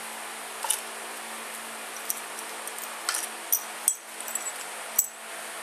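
Small metal clinks as loose valve cover bolts and parts are handled on a KTM four-stroke engine's aluminium cylinder head: about six sharp clicks at uneven intervals, over a steady low hum.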